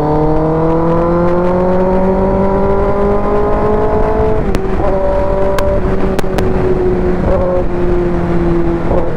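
Kawasaki ZX10R's inline-four engine running through an Arrow full-system exhaust. Its pitch rises slowly for about four seconds and then eases off, with a few sharp cracks near the middle.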